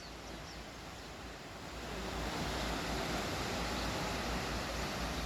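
Sea waves washing onto the shore in a steady rush of surf that swells louder about two seconds in.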